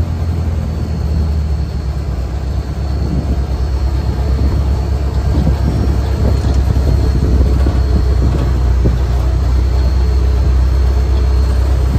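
John Deere 45 self-propelled combine running, heard from inside its cab: a steady low engine drone with irregular rattling and clatter, getting a little louder a few seconds in. The separator is not yet engaged, so this is the engine and drive alone. A faint steady high whine runs underneath.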